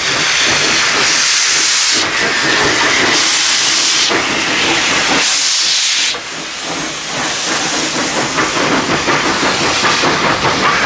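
Beyer-Garratt steam locomotive starting a heavy freight train: loud hissing blasts of steam from the open cylinder drain cocks, about one a second. About six seconds in these give way to quicker, even exhaust beats as it gathers way.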